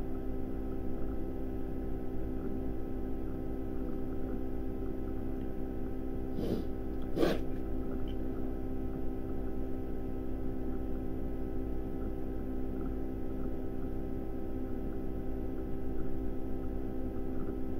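Steady electrical mains hum with several even tones, broken by two short sharp noises close together about six and a half and seven seconds in.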